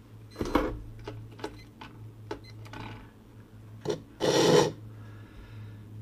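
Handling noise from a shell-core mould being worked at a workbench: a knock, a few light taps and clicks, then about four seconds in a loud half-second scrape as the mould is handled on a wooden board. A steady low hum runs underneath.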